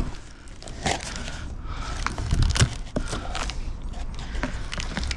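Irregular clicks, light knocks and rustling from a new flux-core welder and its parts being handled.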